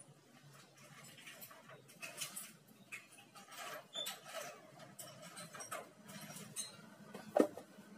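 Handling noises from a motorcycle engine crankcase being lifted and turned over on a wooden block: light metal scrapes, rattles and clicks, with one louder knock about seven seconds in as it is set down.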